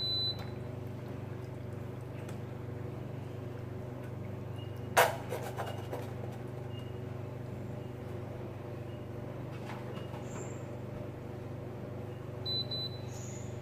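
Induction hob running with a steady low hum, and short high beeps from its touch controls at the start and again near the end as the power setting is changed. One sharp knock about five seconds in.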